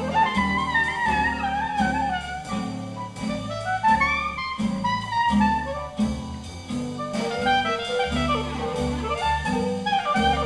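Clarinet playing a winding solo line in a Dixieland jazz band, with the rhythm section's string bass keeping a steady beat underneath.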